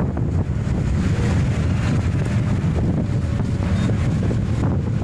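Wind rushing in through the open window of a moving state transport superfast bus and buffeting the microphone, over the steady low rumble of the bus running along the road.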